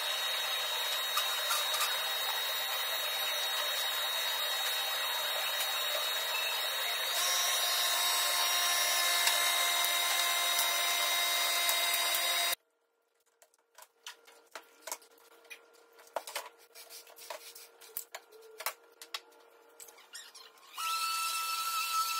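Steady power-tool whir with a few held tones for about twelve seconds, then an abrupt cut to near quiet with scattered light knocks. Near the end an orbital sander starts up on the wooden table frame.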